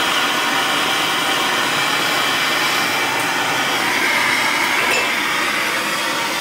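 MAPP gas torch flame with a steady hiss, heating silver in a ceramic crucible to melt it.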